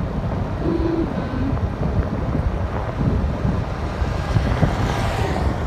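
Wind buffeting the microphone while travelling along a road, a steady low rumble with no break.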